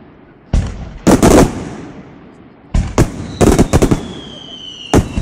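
Aerial fireworks shells bursting: sharp bangs in clusters every second or two, each trailing off in an echo. Near the end, several high whistles glide down in pitch.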